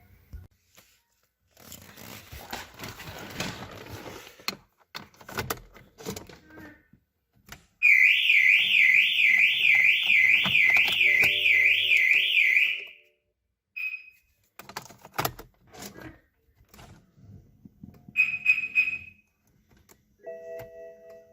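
Car alarm siren, plausibly the BMW's own, warbling up and down about twice a second for about five seconds in the middle. It is surrounded by scattered clicks and knocks, with a short beep and a brief chirp after it.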